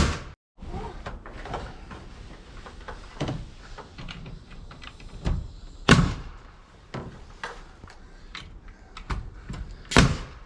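Irregular wooden knocks and thumps from timber framing as rafters are set on the roof frame, about ten of them at uneven spacing, the loudest about six seconds in and another near the end.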